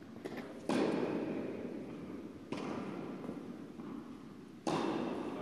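Three sudden thuds about two seconds apart, each echoing and dying away slowly in a large hall.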